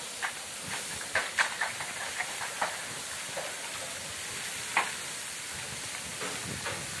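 Borewell (tubewell) spouting a tall column of muddy water on its own under strong groundwater pressure, with no pump: a steady rushing hiss of water and spray, with scattered sharp spatters and ticks.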